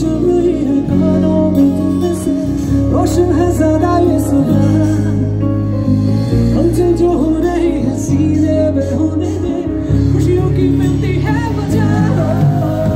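Live band playing loud amplified music through a PA, with a strong bass line and a male singer, heard from within the crowd.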